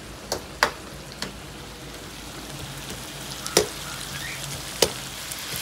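Sliced onions and cumin seeds sizzling in hot oil in a wok, with about five sharp clicks of a metal slotted spoon knocking the pan as they are stirred. The onions are at an early stage of frying, still pale and not yet browned.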